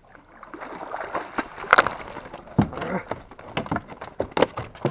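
A large hooked barbiancho catfish thrashing and splashing at the water's surface, then flopping against the wooden canoe as it is hauled aboard. The second half holds a run of sharp knocks.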